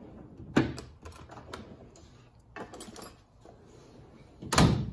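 Metal tools being handled and rummaged at a tool chest: a string of light clicks and clacks, with a sharper clack about half a second in and a louder knock near the end.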